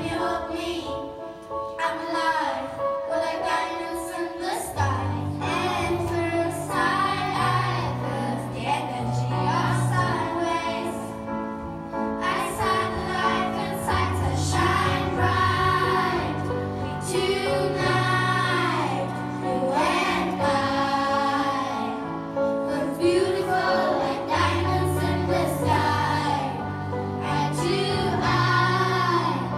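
Children's choir singing with instrumental accompaniment; a steady bass line comes in about five seconds in.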